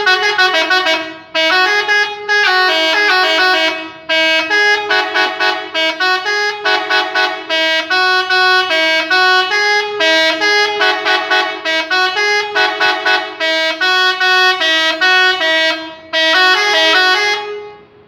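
Bus telolet horn, a multi-tone musical air horn, playing a fast repeating tune of stepping notes with several tones sounding together. It pauses briefly three times and stops near the end.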